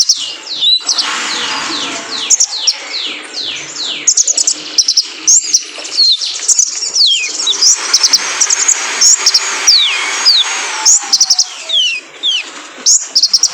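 Male kolibri ninja (sunbird) singing: a rapid, continuous twitter of short, high, sharply falling chirps.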